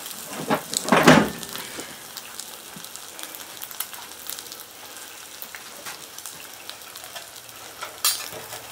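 Eggs sizzling in a cast iron skillet, a steady frying hiss. A loud knock about a second in, and a spatula striking the pan near the end.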